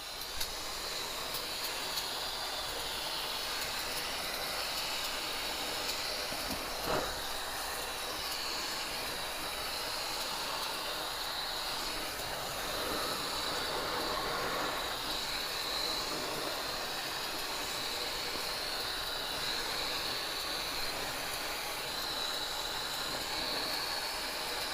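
A steady, even hiss that holds at one level, with a single brief click about seven seconds in.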